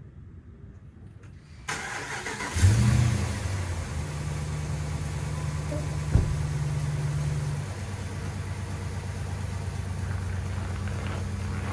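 Vehicle engine starting: it catches about two and a half seconds in with a brief rev, then settles into a steady idle. A single sharp knock about six seconds in.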